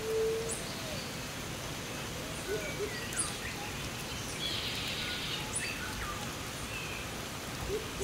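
Light rain falling with a steady hiss under a chorus of forest birds: short high chirps and whistled, gliding calls. There is a low held note near the start and a brief insect buzz about five seconds in.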